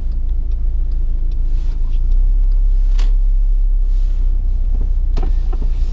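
Low engine and road rumble heard inside a Volkswagen van's cabin as it drives slowly, swelling about two seconds in, with a single sharp click near the middle.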